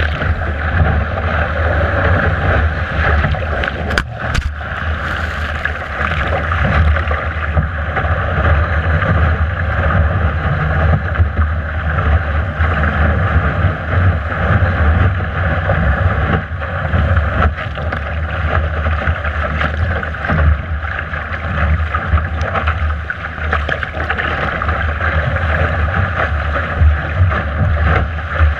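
Heavy wind buffeting the microphone over the steady rush and hiss of water along a Laser dinghy's hull as it planes downwind through waves in 22–29 knot winds, with spray breaking beside the bow. A couple of sharp clicks about four seconds in.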